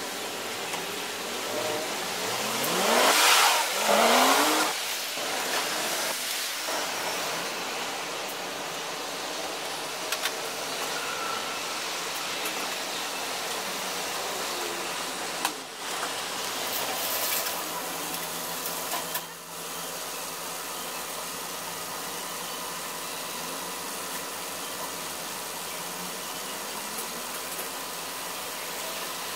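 Repair-shop background noise played at triple speed: a steady hiss, with a vehicle engine rising in pitch and getting loud about three to five seconds in, and a few short clicks and knocks later.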